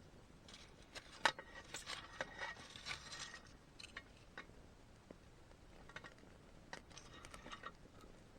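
Rustling with a string of light clicks and taps, busiest in the first few seconds and again near the end, as of small objects being handled.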